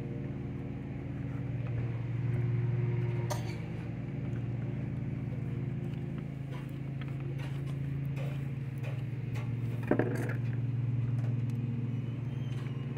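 A steady low motor hum, with a few faint sharp clicks and a small knock about ten seconds in.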